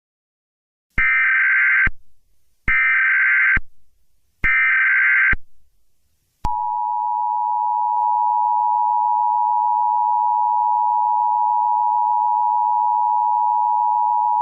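Emergency Alert System tones. Three short bursts of SAME header data, each just under a second long, come about a second apart. About six and a half seconds in, the steady two-tone EAS attention signal begins and holds loud without a break.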